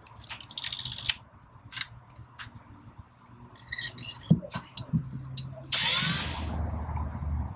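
Clicks and short rattles of a cordless drill's chuck as a 1/4-inch bit is fitted. Then, near the end, the drill spins up with a rising whine and runs steadily for about two seconds, drilling through the billet bowl stuffer.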